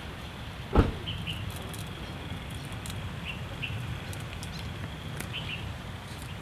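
Leaves being plucked by hand from fresh herb stems, with faint snapping and rustling over a steady low rumble. A brief thump about a second in, and small birds chirp a few times in the background.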